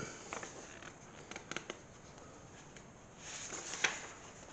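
Paper rustling from a printed instruction booklet being handled and leafed through, with a few light clicks early on and a louder swish of paper with a sharp click about three to four seconds in.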